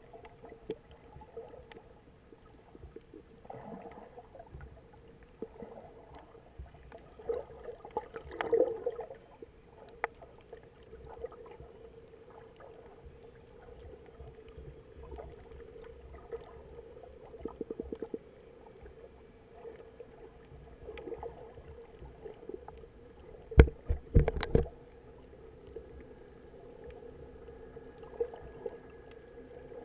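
Underwater sound picked up by a snorkeler's camera: muffled water noise with a steady hum and scattered small clicks. A few loud, sharp knocks come close together about four-fifths of the way through.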